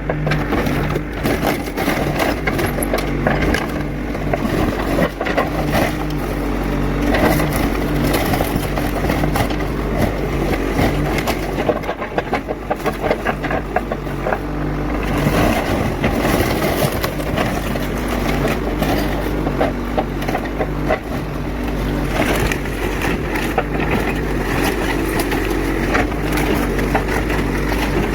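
An engine-driven machine running, its note rising and falling, while wood cracks and crunches under it: a wooden structure being torn down.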